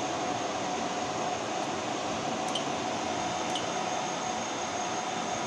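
Two short high key-press beeps from a fire alarm control panel's keypad, about a second apart near the middle, as its menu is worked to re-enable a device. Under them runs a steady background hum.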